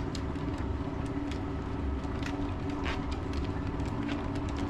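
Steady low mechanical hum, like an engine or motor running, with faint scattered ticks.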